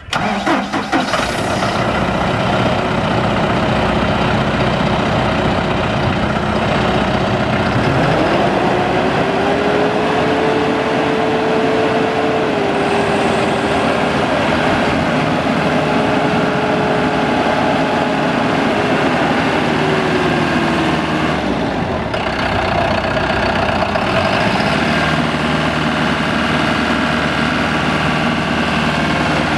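John Deere 5115M tractor's diesel engine starting and then idling. About eight seconds in it is revved up to a higher steady speed, held there for about twelve seconds, and then eases back down to idle.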